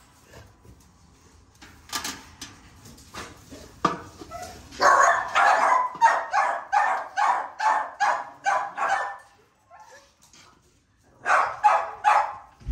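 Young XL bully dogs barking in a kennel: a quick run of about a dozen barks over some four seconds, then three more near the end, with a few scattered knocks before.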